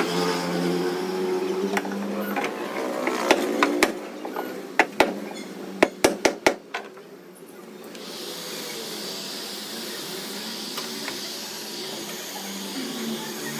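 Bodywork tools tapping on a car's sheet-metal panel: a handful of sharp taps in quick succession. From about eight seconds in, a steady hiss follows.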